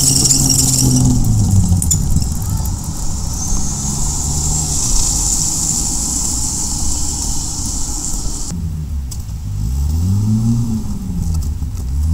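Studebaker M29 Weasel's six-cylinder flathead engine running as the tracked carrier drives up the road. Its note drops in the first couple of seconds, then rises and falls twice near the end as the engine revs up and back.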